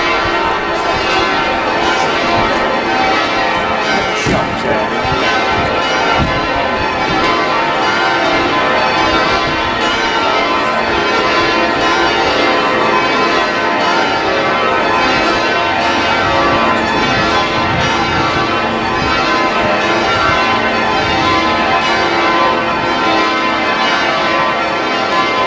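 A ring of church bells being rung down in peal: all the bells strike together in quick succession, a dense, unbroken ringing of many overlapping tones at a steady level.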